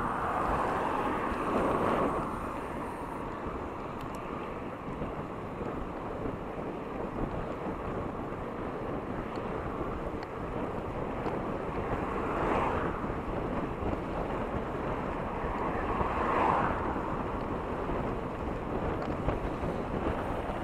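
Wind rushing over the microphone with steady road noise during a bicycle ride, with a few louder swells about two seconds in and again around twelve and sixteen seconds in.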